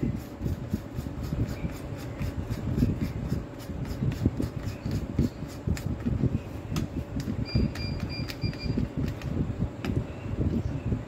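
Light clicks and rattles of the drill's plastic gearbox and clutch collar being handled and turned in gloved hands, over a steady rumbling background noise.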